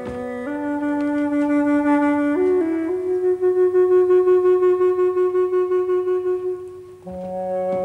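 Background score: a solo flute playing a slow melody that climbs in small steps to one long held note with a pulsing vibrato, then drops to a lower note near the end.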